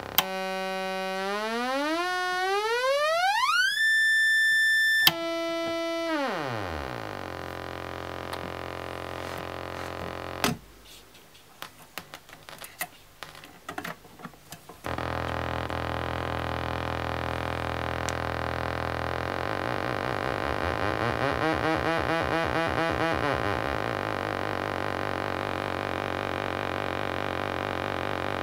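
Homemade reverse avalanche transistor oscillator (DIY modular-synth VCO) giving a raw buzzing tone. Its pitch sweeps up over a few seconds, jumps suddenly, then glides back down to a low drone. Near the middle it breaks into irregular crackling clicks, then returns to a steady buzz that rises and falls once more.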